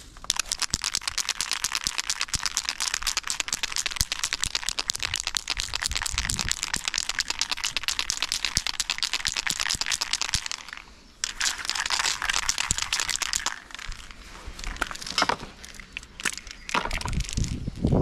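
Aerosol spray-paint can hissing with a rapid crackle as paint goes onto a concrete wall: one long spray of about ten seconds, a short pause, a second spray of about two seconds, then a few short bursts near the end.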